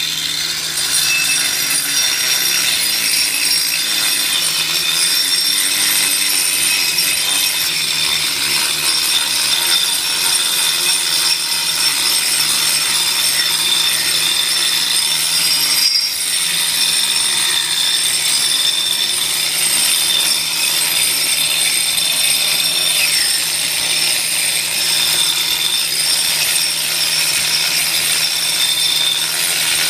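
A 4.5-inch angle grinder with a diamond turbo wheel grinding thinset mortar off a concrete floor. It runs steadily at full speed with a high motor whine over the scraping of the wheel on the floor.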